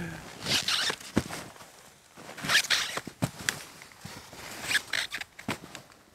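Boots crunching in dry snow and a ski being handled, in three crunchy bursts about two seconds apart, with a few sharp clicks and knocks between them.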